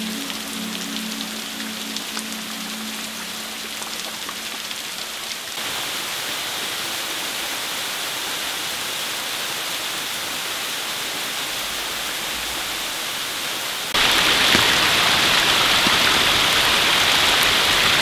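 Meltwater of the Șipote waterfall spilling and dripping down an ice-hung rock face: a steady splashing hiss, which becomes clearly louder about fourteen seconds in.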